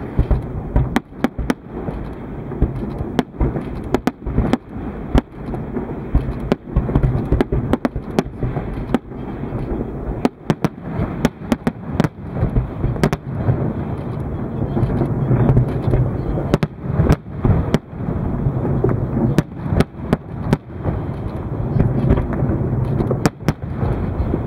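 Fireworks display: aerial shells bursting in an irregular string of sharp bangs and cracks, about two a second, over a steady low rumble.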